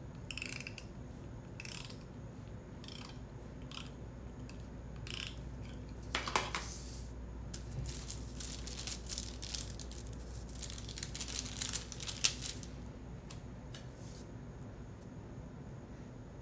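Scattered small desk-handling sounds: light scratches, taps and paper rustles from working with paper planner pages, stickers and stationery, over a faint steady low hum. The loudest scrape comes about six seconds in, with a busier run of scratches around eleven to twelve seconds.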